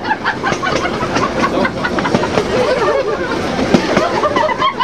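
Narrow-gauge railway carriage on the move: a steady rumble and rattle with repeated clicks of the wheels over the rail joints, heard from inside the train.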